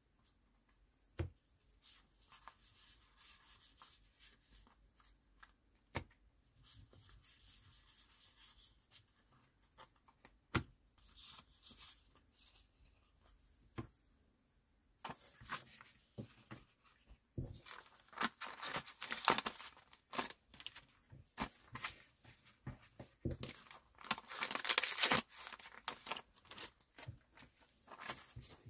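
Small paper memo pads tapped down onto a table a few times, then clear plastic packaging sleeves crinkling and crackling steadily from about halfway through as pads are handled and slid into them.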